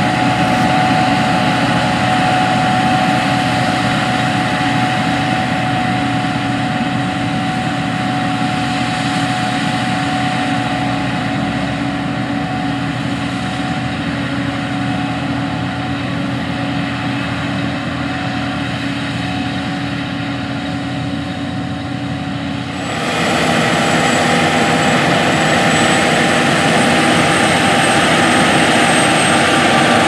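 Combine harvester and grain-cart tractor engines running steadily under load, with a few steady whining tones over the drone. About two-thirds of the way in the sound cuts abruptly to a louder drone of John Deere S790 combines harvesting, with a faint high whine slowly rising in pitch.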